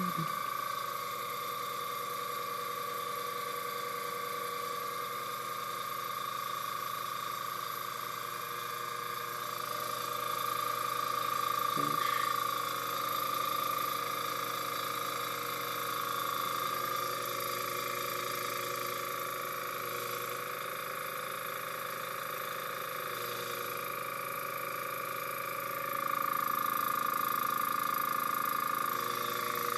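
TCP Global TC-20T airbrush compressor with tank running steadily, a hum with a high steady whine, as it builds pressure on its first run. A short tap about twelve seconds in, and it gets a little louder near the end.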